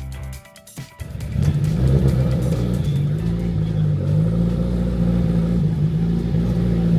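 A car engine starts running loudly about a second in and keeps a steady, slightly wavering low note.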